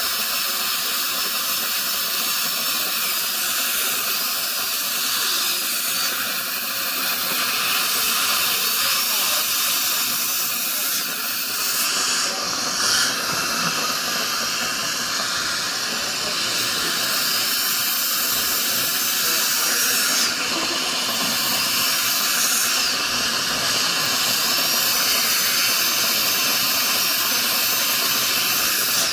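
High-speed dental drill whining over a steady hiss, the pitch of the whine wavering a little.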